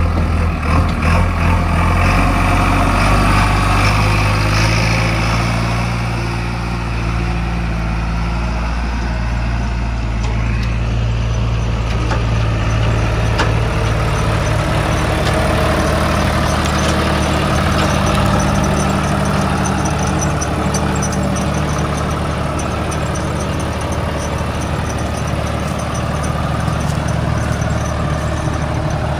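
Diesel engines of a JCB 3DX backhoe loader and a John Deere tractor running as the two machines drive slowly past. The engine note is steady, and its pitch shifts a few times as they move off.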